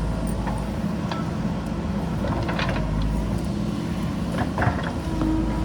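JCB backhoe loader's diesel engine running steadily, with a few short knocks over it, the loudest about four and a half seconds in.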